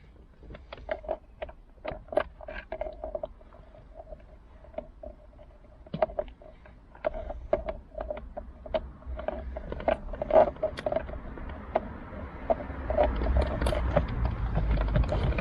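Irregular run of sharp metallic clicks, each with a short ring, from a hand tool working a steering-wheel airbag retaining bolt loose. Rustling and handling noise grows louder in the last few seconds.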